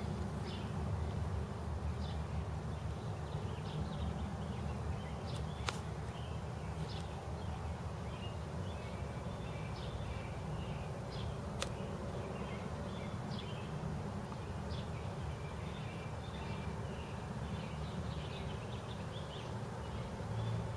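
Outdoor background sound: a steady low rumble with many short, high chirps from small birds scattered throughout, and a couple of faint clicks.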